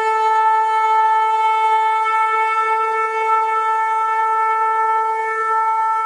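A horn sounding one long, unbroken note that holds a steady pitch, with no breaks or change.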